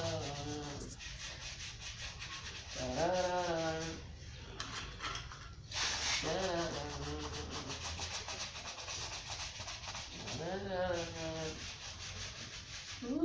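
Fast, steady rubbing strokes on a leather shoe being polished with Kiwi shoe polish. A voice sounds briefly three or four times in short, drawn-out calls.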